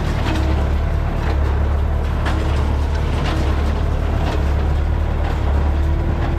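Massey Ferguson 575 tractor's four-cylinder diesel running steadily while driving a New Holland 377 square baler, with a regular sharp knock about once a second from the baler.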